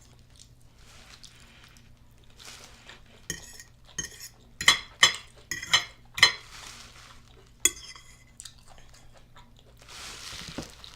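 Metal cutlery clinking and scraping against a dish while eating a plated meal: a few light clinks, then a quick run of loud, ringing clinks in the middle, one more a little later, and a softer scrape near the end.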